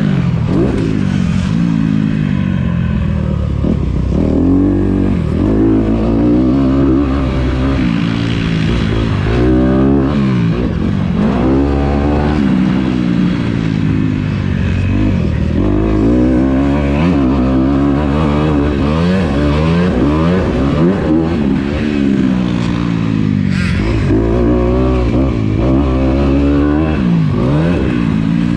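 Dirt bike engine, heard from on board, revving up and falling back over and over as the rider works the throttle and gears around a motocross track.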